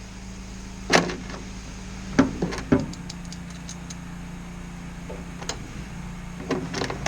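A handful of sharp clicks and knocks from metal parts and hand tools being handled while riveting pedal brackets: one about a second in, two more between two and three seconds, and a cluster near the end, over a steady low hum.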